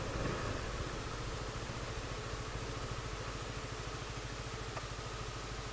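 Motorcycle engine idling steadily with an even, low pulse.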